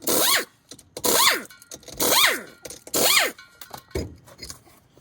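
Pneumatic impact wrench hammering on a wheel's lug nut to work it loose, in four short bursts about a second apart, the pitch of each burst falling as it winds down. A dull thump follows near the end.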